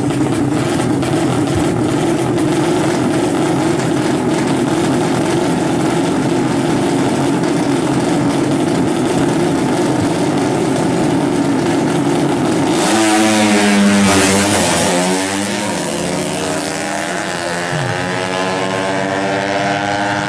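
Two drag-racing motorcycles, a bored-up 150cc two-stroke Yamaha F1ZR and a bored-up 200cc four-stroke Yamaha Jupiter, held revving at the start line. About 13 seconds in they launch, engines revving hard, the pitch climbing and dropping through several gear changes as they run off down the strip.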